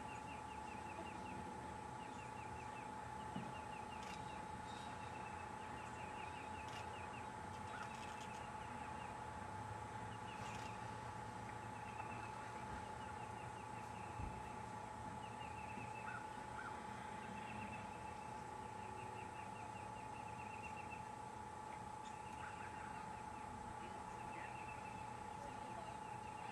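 Repeated short, high chirping trills, each a quick run of chirps, recurring every second or two over a steady faint hum.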